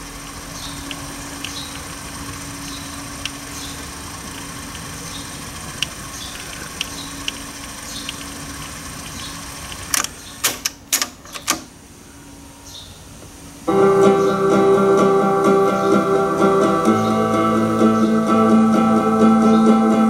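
Pioneer CT-1370WR cassette deck winding the tape forward in music search with a low steady whir and faint ticks. About ten seconds in, a quick run of loud mechanism clicks as it finds the gap between songs and drops back into play. After a short pause, the next song starts playing from the cassette.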